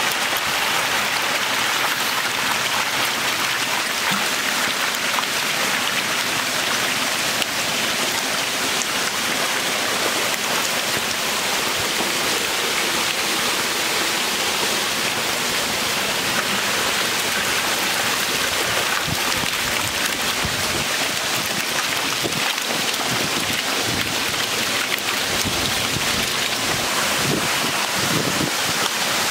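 Crowd of juvenile magur catfish thrashing and splashing at the surface of a packed cement tank as they feed, a steady, dense churning of water with no break.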